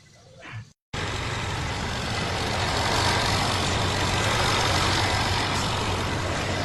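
2016 Mercedes CLA 250 4MATIC on the move after a fuel pump replacement: steady road and tyre rush with a low engine hum. It starts abruptly about a second in, after a brief cut.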